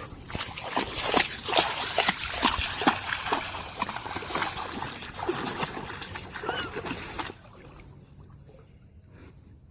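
Water splashing and sloshing in quick, irregular strokes, cutting off abruptly about seven seconds in.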